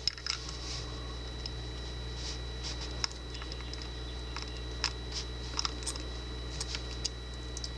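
Scattered small clicks and light scrapes of hands working a Master Lock deadbolt cylinder and a thin shim cut from a can, over a steady low hum.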